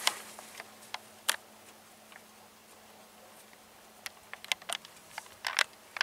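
Scattered sharp metallic clicks and taps of a wrench working the gearbox drain plug loose on a Ural motorcycle: a few single clicks, then a small cluster about four seconds in and another near the end.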